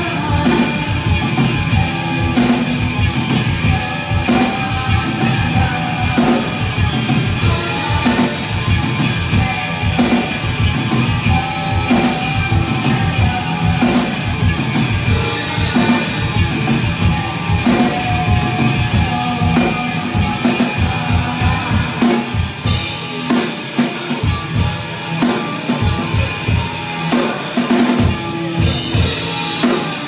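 A drum kit played live, loud and fast: dense kick drum and snare hits under cymbals, with a few held notes from other instruments underneath. For a few seconds near the end the kick drum drops away and the cymbals take over.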